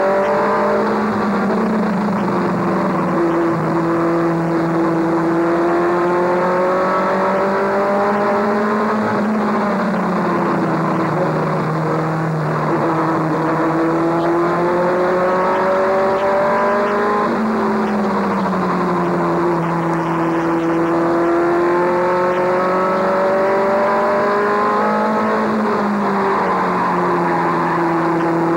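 Race truck's engine heard from inside its own cab under racing load. The engine note falls and climbs back again about every eight seconds as the truck lifts for each turn and accelerates down each straight.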